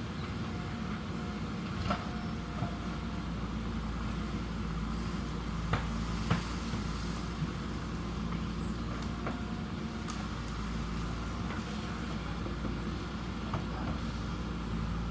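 JCB backhoe loader's diesel engine running steadily, with a few short sharp knocks, two of them close together midway.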